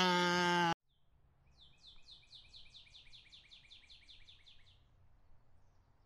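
A sheep bleating, cut off sharply just under a second in. Then a small songbird sings a quick trill of about seventeen short, high, falling notes, roughly five a second, for about three seconds.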